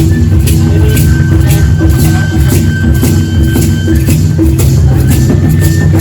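Loud show music with heavy bass and a steady beat, about two beats a second.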